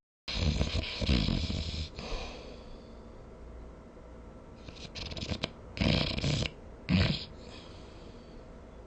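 A sleeper snoring in loud, irregular bursts. After a brief cut to silence there is one long snore of about a second and a half, then, after a lull, three shorter snorts about five, six and seven seconds in.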